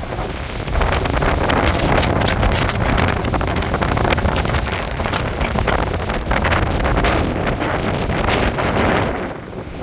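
Gusty storm wind buffeting the camera's microphone, a loud, steady rush of noise that eases briefly near the end.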